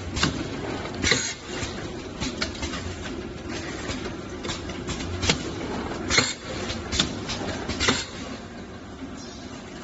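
Tin can filling and seaming machine running: a steady machine hum with irregular sharp metallic clicks and clunks, the loudest about a second in and a few between five and eight seconds in.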